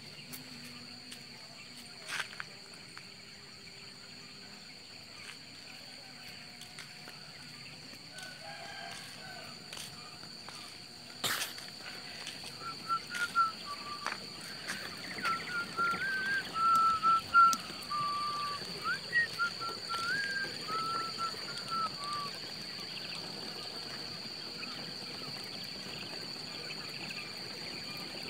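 Birds calling in a run of short, wavering chirping notes through the middle of the stretch, over a steady high-pitched whine. A single sharp knock comes just before the calls begin.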